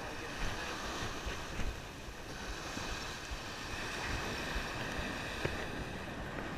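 Ocean surf washing up the beach in a steady wash of noise, with wind rumbling on the microphone.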